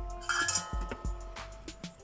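Background music with a steady low beat and held tinkling notes.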